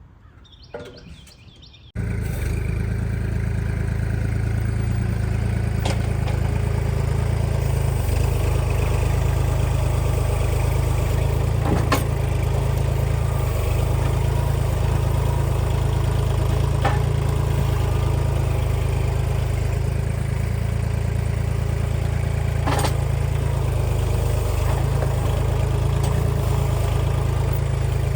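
Kubota L2501 compact tractor's diesel engine running steadily, coming in abruptly about two seconds in, with a few sharp clanks now and then.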